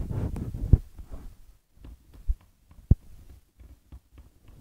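Rustling handling noise, close to the microphone, for about the first second, then a few separate sharp knocks and small clicks as the cardboard-and-wood model car wash is touched.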